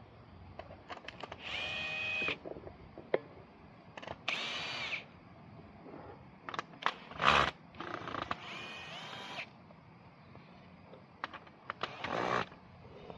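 A drill-like power tool running in four short bursts of under a second each, with a few sharp knocks between them, as ties are being taken off a cut track panel.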